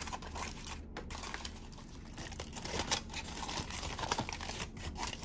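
Aluminium foil crinkling irregularly as a hand peels it back from a covered bowl of food.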